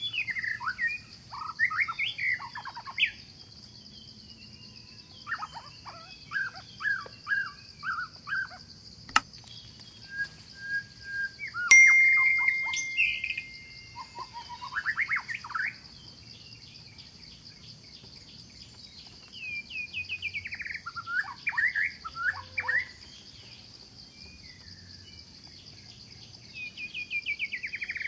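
Forest birds chirping in bursts of quick, falling notes, with quiet gaps between bursts, over a steady high-pitched hum. A sharp click about twelve seconds in is the loudest moment and is followed by a held whistled note lasting a couple of seconds.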